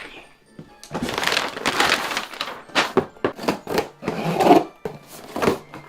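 A crunching, rustling noise for about a second and a half, then a quick run of sharp cracks and pops.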